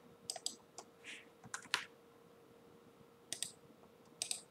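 Quiet, scattered clicks from a computer keyboard and mouse, coming in small clusters of two or three, over a faint steady hum.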